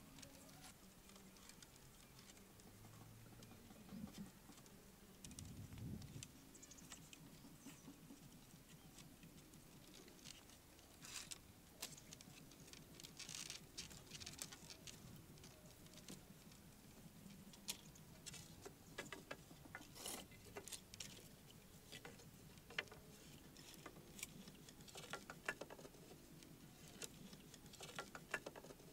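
Faint, scattered light clicks and taps of bamboo poles knocking against one another on a bamboo house frame as it is climbed and worked on. A few soft low thuds come early on, and the clicks grow more frequent in the second half.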